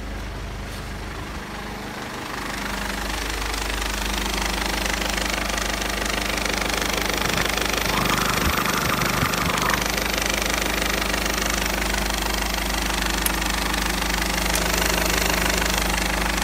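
Mercedes-Benz OM611 2.2 CDI four-cylinder diesel engine idling steadily, getting louder over the first few seconds.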